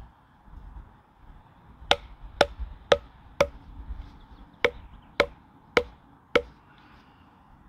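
A wooden mallet knocking wooden pegs down into holes augered in a log, eight sharp hollow knocks in two runs of four, about two a second, with a short pause between the runs.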